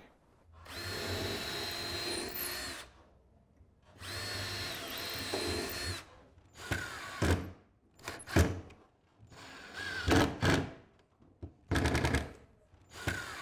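Cordless drill driving screws up into an overhead sliding-door track to fix the end stops: two long runs of a few seconds each with a steady motor whine, then several short bursts, the motor winding down after each as the screws are snugged home.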